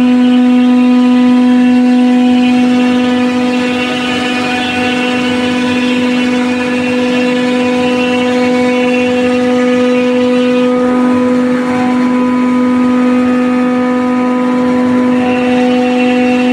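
CNC router spindle running at speed while its cutter grooves a drywall panel: a steady high whine over the rasp of the cut. The upper part of the whine fades for a few seconds past the middle, then comes back.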